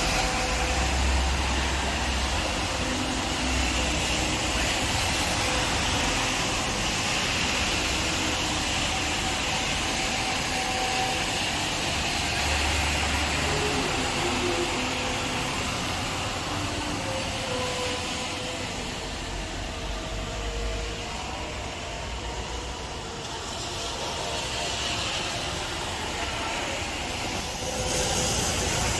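Rain and wind: a steady hiss of rain with gusts of wind buffeting the microphone in low rumbles. It dips a little past the middle and picks up again near the end.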